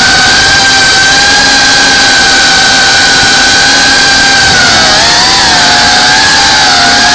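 FPV quadcopter's brushless motors and propellers whining steadily over heavy rushing noise, picked up by the onboard camera. The pitch wavers down and up about five seconds in as the throttle changes in a turn.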